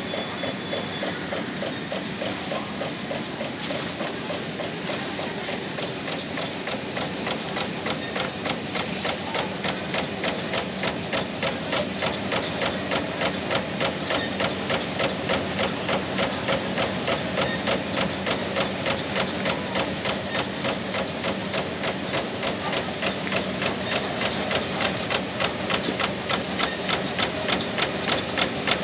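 Servo-driven plastic bag sealing and cutting machine running, its cutting stroke knocking in a fast steady rhythm that grows louder toward the end. From about halfway a short high hiss comes roughly every second and a half.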